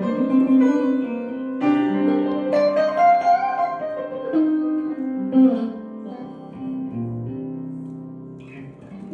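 Instrumental music: plucked guitar and piano playing sustained chords, growing softer near the end.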